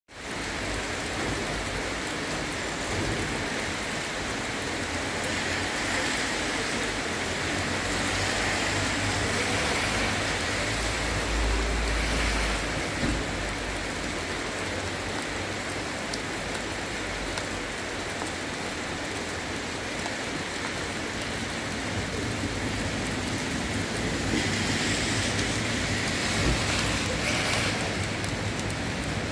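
Steady rain falling on a wet street, a constant hiss, with a low rumble about eleven seconds in.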